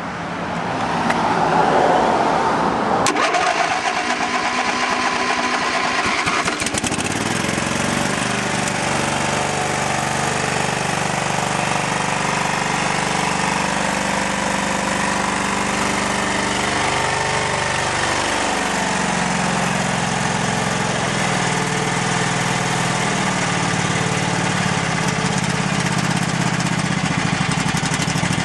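A 22 hp Briggs & Stratton ELS V-twin lawn tractor engine is cranked and starts within the first few seconds, then runs steadily. Its speed rises and falls briefly about two-thirds of the way through.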